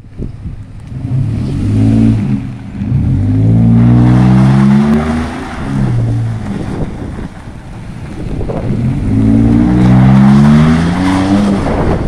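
Pickup truck engine revving hard in two long runs, its pitch climbing through each run: one starts about a second in, the other just past the middle. Tyre noise on wet pavement runs along with the revs as the truck swings around.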